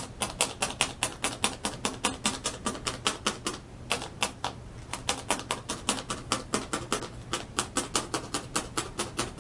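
Felting needle rapidly stabbing wool roving down into the base to tack it in place: an even run of sharp clicks, about five or six a second, with a couple of brief pauses.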